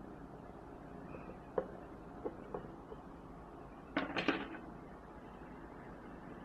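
Low steady background with a few faint clicks, then about four seconds in a brief scratchy rustle as a kitten's fur brushes against the phone's microphone.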